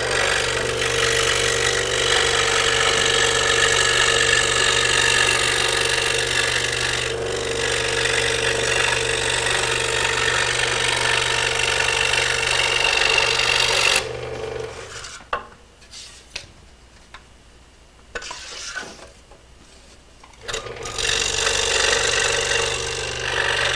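Scroll saw running, its blade cutting through thin plywood. About 14 seconds in the saw stops suddenly, leaving a few light clicks, and it starts up again some six seconds later.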